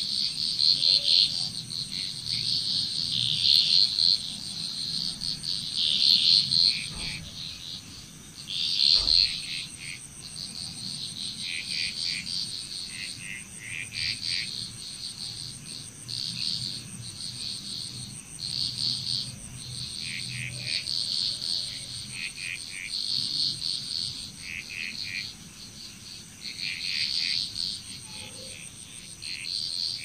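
Frog chorus: many frogs calling at once in overlapping bursts of rapid, pulsed, high-pitched calls, each lasting under a second. A steady high-pitched insect drone runs underneath.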